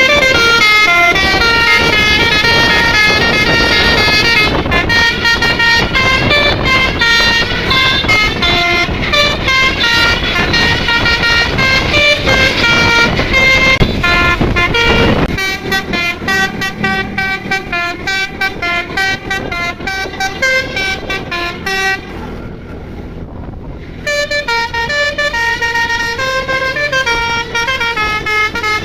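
Telolet musical bus horn playing a rapid tune of air-horn notes, jumping from pitch to pitch several times a second, over a low rumble during the first half. The tune breaks off for about two seconds near the end, then starts again.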